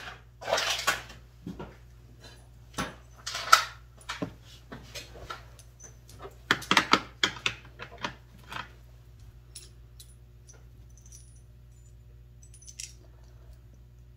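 Metal sockets clinking and clattering as they are handled and rummaged through, in bunches of quick clicks over the first eight or nine seconds, then only a few faint ticks.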